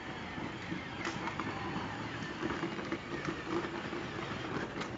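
Battery-powered ride-on toy Cadillac Escalade driving: its small electric motor whirring with a faint steady whine, and its plastic wheels rolling over brick paving, with a few small knocks.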